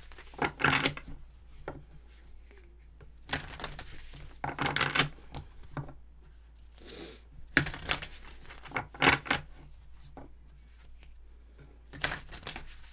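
Tarot cards being handled and shuffled: several short rustling bursts with pauses between them.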